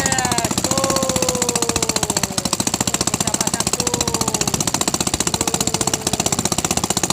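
A small engine running steadily with a rapid, even pulse, with voices heard over it.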